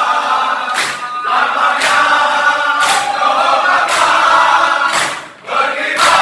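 A group of men singing a yel-yel cheer song together, with a sharp clap about once a second keeping the beat. The singing breaks off briefly near the end, then comes back in.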